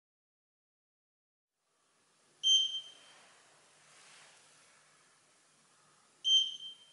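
Two short, high electronic beeps from a FASTfinger KOJAK PL fingerprint scanner setup during a rolled-fingerprint capture, the first about two and a half seconds in and the second about four seconds later.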